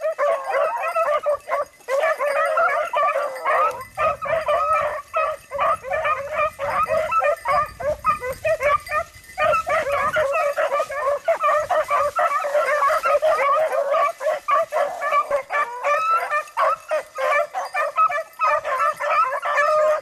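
A pack of beagles baying and yelping together, many overlapping calls with no break, as the hounds run a rabbit's trail.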